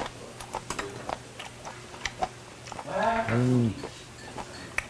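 A man chewing with scattered small clicks and smacks. About three seconds in he gives one short hummed "mmm" of enjoyment that rises and then falls in pitch.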